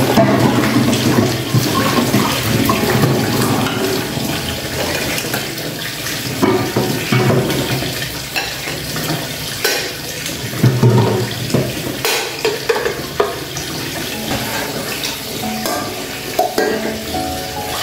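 Tap water pouring steadily into a large plastic basin, with splashing as dishes are rinsed and a few clanks as aluminium pots and plates are set into a plastic dish basket.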